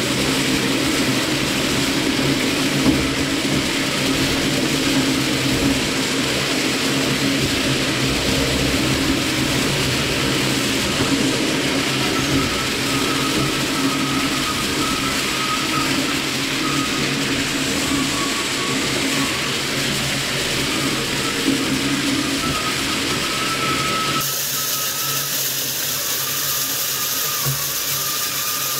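Twin-shaft industrial shredder running steadily under load, its motor humming while the rotating cutters tear and crinkle aluminium kitchen foil. The noise changes abruptly near the end.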